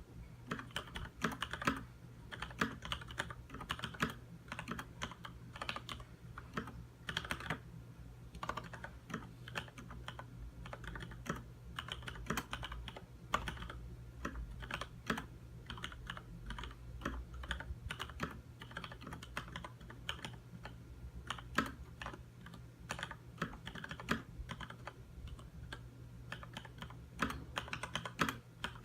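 Continuous typing on a Leopold FC900R full-size mechanical keyboard with Cherry MX Red linear switches: a quick, uneven run of key clacks.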